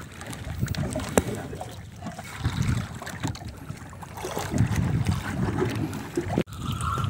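Wind buffeting the microphone and water washing against the hull of a small outrigger fishing boat, uneven and gusting, with one sharp knock about a second in.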